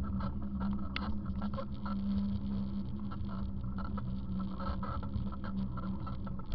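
Bicycle rolling along sidewalk paving, heard through a handlebar-mounted camera: a steady low hum and rumble with frequent small rattling clicks, and one sharper click about a second in.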